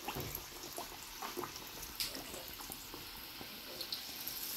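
Hot oil sizzling around a round of jaggery and rice-flour batter deep-frying in a pan: a steady hiss with scattered crackles and pops.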